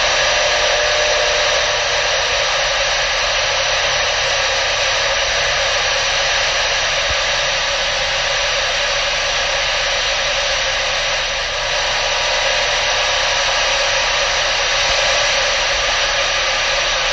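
Steady AM static hiss from a Uniden PC66XL CB radio on channel 19, played through an external speaker. The squelch is open and no station is transmitting. The hiss holds an even level throughout.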